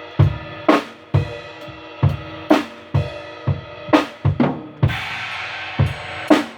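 Acoustic drum kit being played: a beat of bass drum and snare strokes roughly every half second, with a cymbal crash ringing out about five seconds in.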